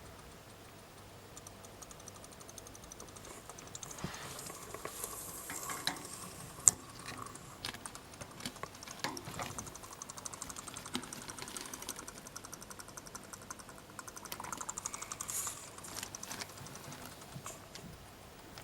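Guinea pig chattering its teeth in bouts of rapid fine clicks, with one sharper click about seven seconds in. The chattering is the guinea pig showing annoyance.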